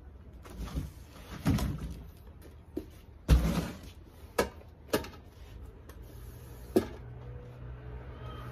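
Handling knocks and clunks as an assembled bar stool with a chrome post and round chrome base is turned upright and set down on paving stones: five separate knocks, the loudest about three seconds in. A low hum comes up near the end.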